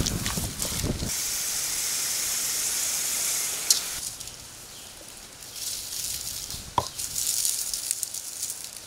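Stone roller grinding spice paste on a flat grinding stone for about the first second, then a steady high hiss that breaks off about four seconds in and comes back near the end, with a few sharp clicks.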